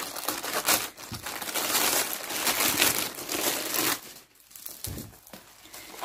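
Plastic courier mailer crinkling and rustling as it is cut open with scissors and pulled apart. The noise eases about four seconds in, leaving a few lighter rustles.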